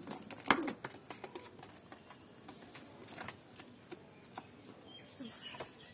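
Pigeons moving and pecking inside a mesh cage: scattered light clicks and taps, with one sharper knock about half a second in.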